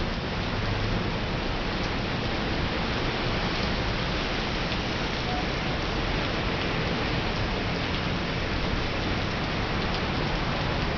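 Heavy rain pouring onto the street and pavement, a steady even hiss.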